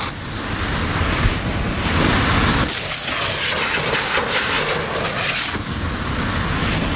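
Firefighting water jet from a lance sprayed into a burning building: a steady hissing spray that grows louder and brighter about two seconds in, then eases back near the end.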